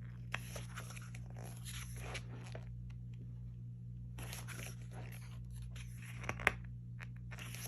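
Paper rustling and soft clicks as the pages of an album photobook are handled and turned, in two spells with a sharper click near the end, over a steady low hum.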